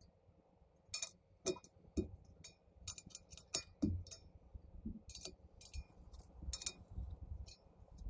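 Light metallic clicks and clinks from work on a spoked e-bike wheel during truing. There are about fifteen of them, irregularly spaced, starting about a second in.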